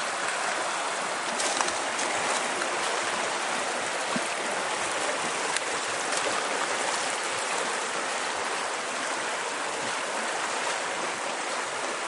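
Steady rushing of a river in flood, fast water running high against a small bridge.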